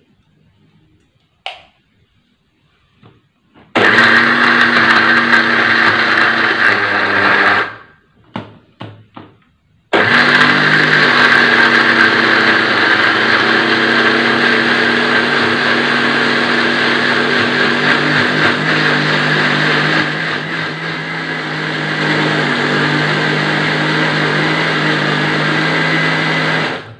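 Panasonic countertop blender grinding chopped spices with water into a paste: a first run of about four seconds, a short pause with a few clicks, then a long steady run that stops just before the end.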